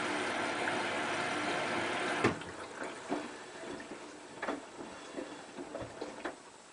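Hotpoint Ultima WT960 washing machine taking in water with a steady hiss that stops abruptly with a click about two seconds in, followed by scattered light clicks and knocks.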